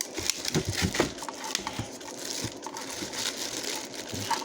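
Packaging being handled: crinkling and rustling with irregular small clicks and knocks as items are pulled out and unwrapped.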